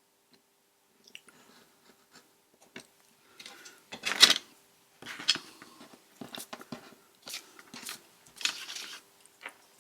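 Scissors trimming small pieces off paper, with paper rustling: a series of irregular crisp snips and crackles, the loudest about four seconds in.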